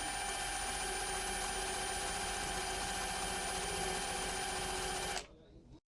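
Electric drill running at a steady speed, spinning a ratcheting screwdriver so its ratchet is forced to turn over. It stops suddenly about five seconds in.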